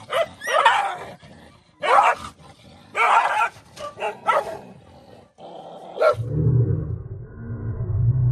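Dogs barking and snarling in short bursts as they squabble over a shared food plate. About six seconds in this gives way to a low, continuous growl.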